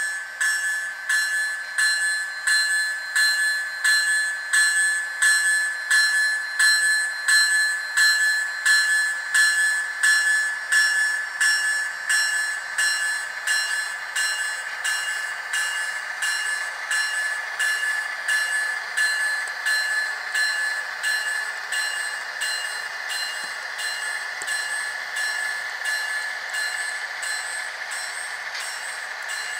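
A model diesel locomotive's electronic bell ringing with evenly repeated strikes, about one and a half a second. The strikes grow fainter in the second half, blending into a steadier ring.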